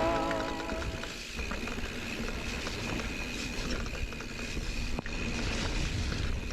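Hardtail mountain bike descending a wet dirt trail: tyres rumbling and rattling over the ground, wind on the mic, and the rear hub's freewheel buzzing steadily while coasting.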